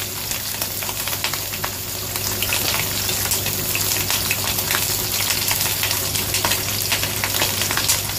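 Oil sizzling and crackling around a whole yellow croaker pan-frying undisturbed in a stainless steel wok over medium-low heat, a steady spatter of fine pops. A steady low hum runs underneath.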